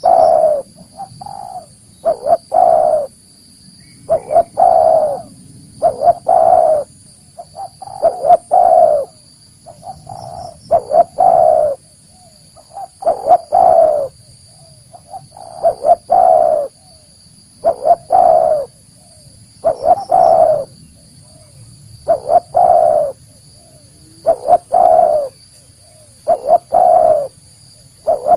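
Spotted dove (tekukur) cooing over and over, a lure call. Each phrase is a few short coos ending in a longer one, repeated about every two seconds.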